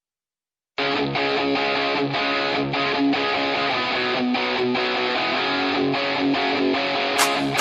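Background music with strummed guitar starting about a second in, joined near the end by sharp drum hits.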